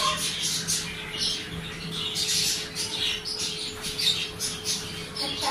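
Birds chirping and squawking in quick, repeated short calls.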